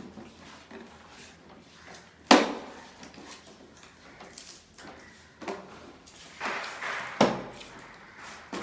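Two sharp knocks, the first a little over two seconds in and the louder of the two, the second near the end, with smaller clicks and clattering between them and a short hiss just before the second knock.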